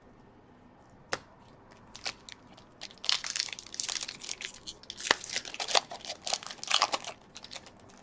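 Hockey card pack wrapper being torn open and crinkled: a couple of sharp crackles, then a dense run of crinkling from about three seconds in until near the end.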